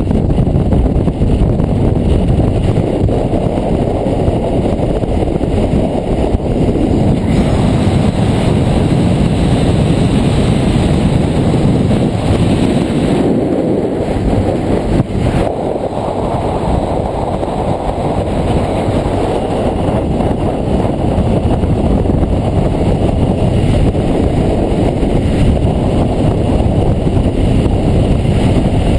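Steady wind noise rushing over the microphone of a motorcycle at road speed, with the engine running underneath.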